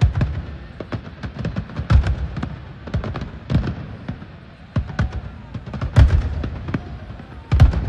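Fireworks going off: a dense, irregular string of sharp bangs and crackles over deep booms, with the heaviest explosions about two seconds in, about six seconds in and just before the end.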